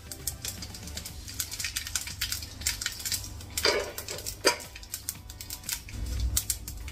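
Mustard seeds popping and spluttering in hot sesame oil in a frying pan: irregular sharp crackles and pops, a couple of them louder around the middle.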